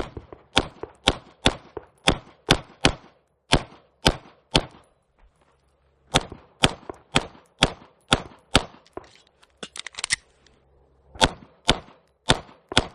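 Pistol shots fired in rapid strings during a timed course of fire. Each shot is a sharp crack. There are about two dozen in all, with a break of about a second a little before the middle.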